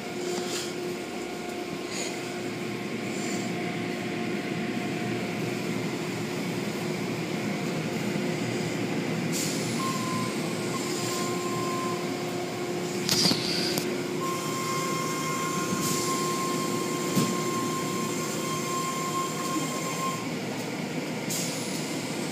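Automatic tunnel car wash equipment running: a steady mechanical rumble with a low hum. Midway a higher motor whine comes and goes, and there are a few brief hissing bursts.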